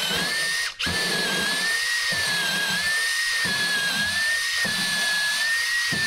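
Makita cordless drill running steadily with a high motor whine as a 3/8-inch bit bores through 2x4 lumber, following a pilot hole drilled first. The motor stops for a moment just under a second in, then runs on.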